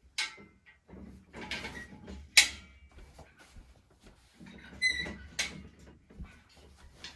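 Metal knocks and scrapes of a plasterboard panel lifter's arms being handled and slid into its frame, the loudest knock about two and a half seconds in and a brief metallic ring about five seconds in.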